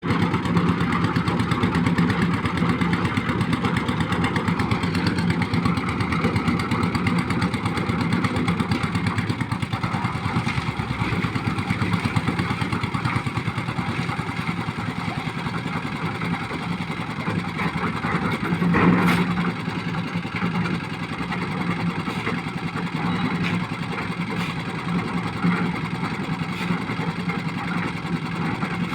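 A concrete mixer's engine running steadily, with a short knock about two-thirds of the way through.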